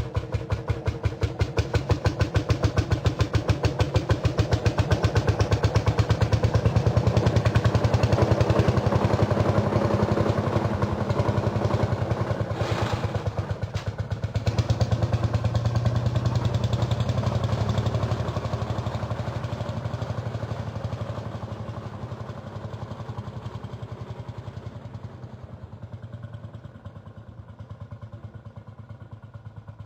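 Tractor engine chugging with a rapid, even putter. It grows louder over the first several seconds, dips briefly about halfway, then slowly fades away.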